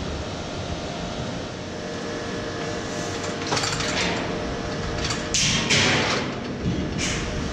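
Steel hull plates of a narrowboat shell knocking and scraping as a worker clambers onto it: a handful of loud clanks in the second half, over steady workshop noise.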